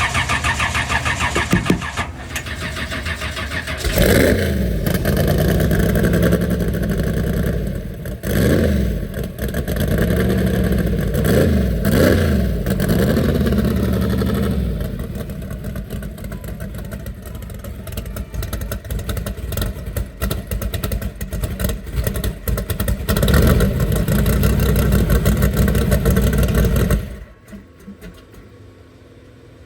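Naturally aspirated Ford Mustang drag-car engine running loud, revved up and down several times, then held steadier before it stops abruptly near the end.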